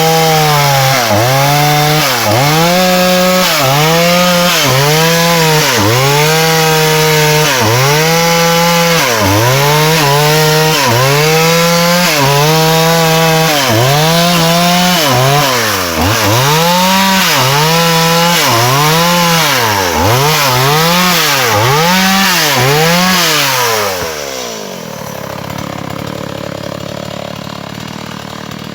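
Chainsaw cutting through a fallen log, its engine pitch dipping and recovering about once a second as the chain bites under load. About 24 seconds in it eases off and drops to a quieter idle.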